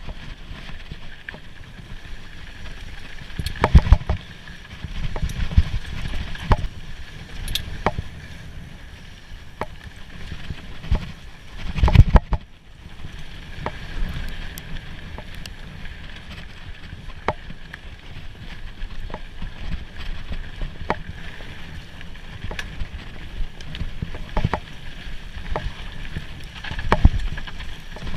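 Mountain bike ridden over a rough trail: a steady rumble with rattling and many sharp knocks over bumps. The heaviest knocks come about 4 and 12 seconds in and again near the end.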